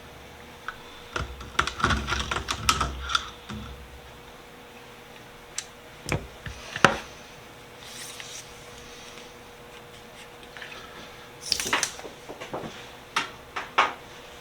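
Clicks and knocks of a plastic tub and small metal pipe-wrench parts being handled as the parts are taken out of a rust-remover soak, in three bouts of clattering with pauses between.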